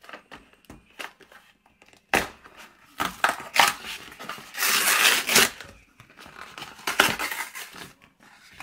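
Cardboard frozen pot-pie box torn open along its perforated top, with the plastic wrapper around the pie crinkling as it is pulled out. Several separate tearing and rustling bursts, the longest and loudest about halfway through.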